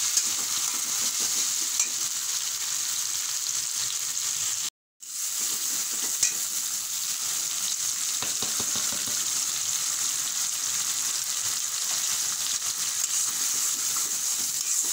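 Mustard paste frying in hot mustard and soybean oil in a metal karahi: a steady sizzle with occasional scrapes and taps of a metal spatula stirring it. The sound drops out for a moment about five seconds in.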